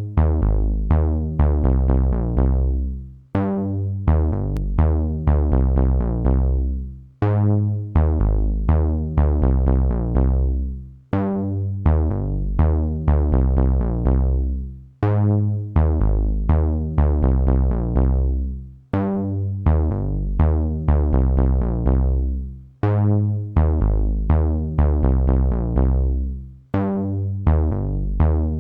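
Electronic music: synthesizer and drum-machine loop with a heavy bass line, repeating a short phrase about every four seconds.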